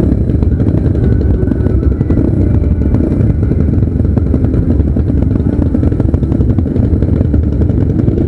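Several motocross motorcycle engines running together, a loud, steady, dense engine sound.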